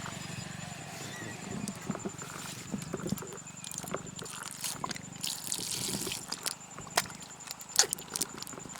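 Small irregular water splashes and drips with scattered clicks, and one sharp knock near the end.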